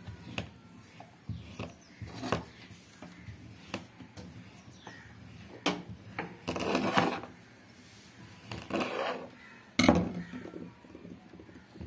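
Kitchen knife slicing through kinetic sand: soft scraping strokes as the blade cuts and drags the slabs, with light taps of the blade on the tabletop and one sharper knock about ten seconds in.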